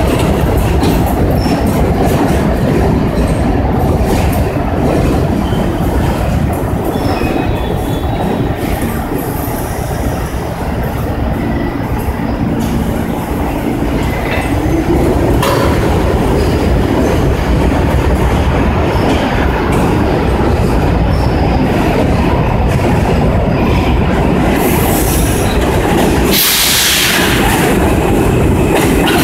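New York City subway trains at an elevated terminal. An R46 train rolls past on the far track with a continuous rumble of wheels on rail and a clickety-clack over the rail joints. Near the end an R160 train pulls in on the near track, with a brief loud harsh burst about 27 seconds in.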